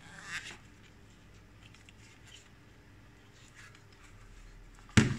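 Faint rustling and rubbing as a rubber shock cover is worked off a portable hard drive's plastic case, then one sharp knock near the end, the hard plastic case striking the wooden desk.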